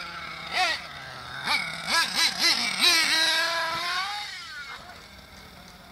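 HPI Trophy Truggy nitro engine blipped several times, each rev swooping quickly up and back down, then held at high revs for about a second before easing off and fading away.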